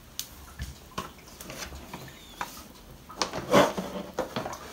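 Hard plastic grass box of a Spear & Jackson electric lawnmower knocking and scraping against the mower housing as it is handled and fitted into place. The sound comes as scattered clicks, with a louder clatter of several knocks about three and a half seconds in.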